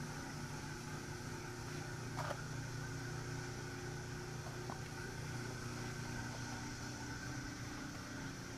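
Steady hum of a running motor under an even hiss of compressed air, the sound of paint being sprayed with a DeVilbiss Tekna Copper spray gun in a shop.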